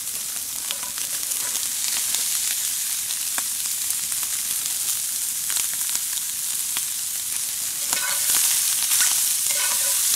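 Cajun sausages frying in a cast iron skillet over campfire coals: a steady sizzling hiss with scattered small pops.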